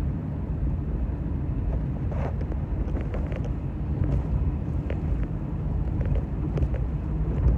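Steady low rumble of a car's cabin on the move, with a few faint clicks.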